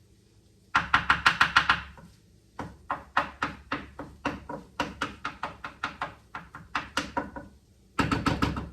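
Rapid rhythmic clacking of a kitchen utensil, about six strikes a second, in three runs: a short loud run about a second in, a longer softer run through the middle, and another loud run near the end.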